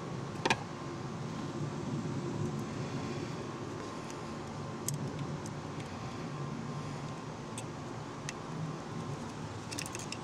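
Small metallic clicks and ticks from a screwdriver and crimped wire terminals on the brass screw terminal strip of a Bennett trim tab switch. The first click, about half a second in, is the sharpest, and a quick cluster of clicks comes near the end, over a steady background hum.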